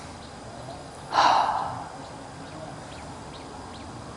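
A man's forceful audible breath about a second in, a short rush of air that fades over about half a second, one of three staged breaths in a yoga breathing exercise.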